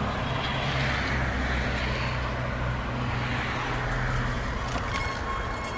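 Steady road noise from a bicycle being pulled along a paved street: a constant hiss over a low hum.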